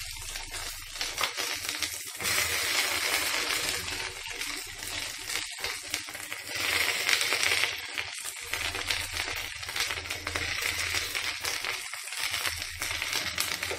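Chopped okra sizzling as it fries in hot oil with cumin seeds in a kadai. The sizzle swells louder twice.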